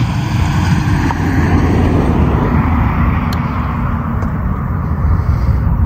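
Wind buffeting the microphone: a loud, rough, low noise that flutters without pause and swells slightly after the first second.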